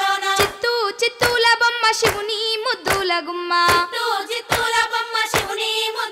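A female voice singing a Telugu Bathukamma folk song, with a sharp hand clap about every 0.8 seconds keeping the beat.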